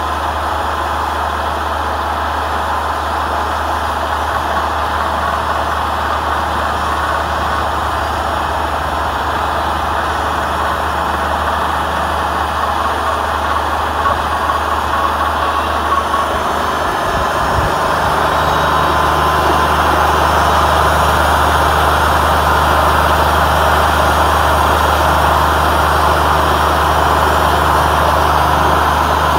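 Engine of a Wood-Mizer LT40 Wide hydraulic portable sawmill running at a steady speed. It grows louder about two-thirds of the way through and holds there.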